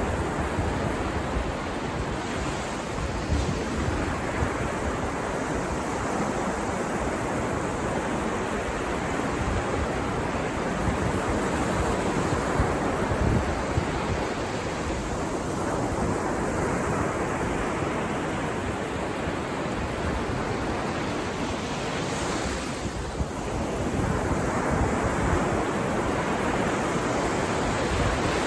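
Ocean surf washing onto a beach, a continuous rush of breaking waves that swells and eases, with wind buffeting the microphone.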